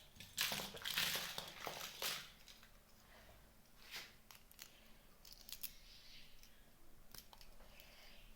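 Plastic packaging crinkling and rustling in several loud bursts over the first two seconds, then a few sharp small clicks and taps, from unwrapping a miniature plastic toy kitchen set.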